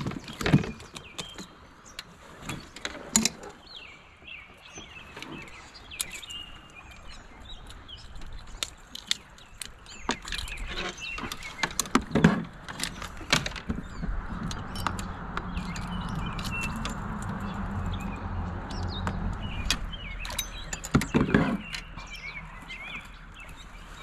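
Scattered knocks and taps against a plastic kayak as a caught smallmouth bass and tackle are handled, with birds chirping. A steady rushing noise comes in about halfway through and fades a couple of seconds before the end, with a cluster of louder knocks near the end.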